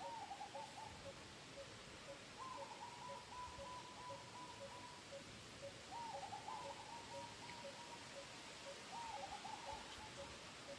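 Faint animal calls in four bouts, each a run of quick wavering notes held near one pitch, over a steady, evenly spaced series of short lower notes about two or three a second.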